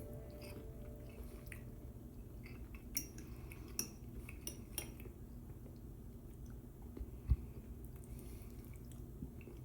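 Faint clinks of cutlery against a dish: a handful of sharp light clicks around three to five seconds in, then a single low thump about seven seconds in.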